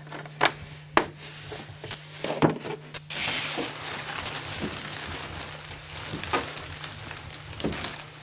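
Wooden sticks knocking against a cardboard box and each other, with about five sharp knocks in the first three seconds. After that comes a steady rushing hiss with a few more knocks.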